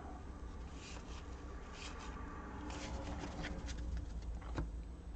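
Trading cards handled by hand: a faint rustle as the cards slide against each other, with a few soft ticks as they are flipped and set down, over a low steady hum.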